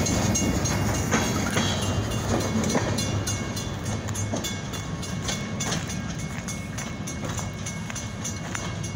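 Freight train's last cars rolling away along the track: a steady rumble with scattered sharp clicks from the wheels on the rails, fading as the end of the train recedes.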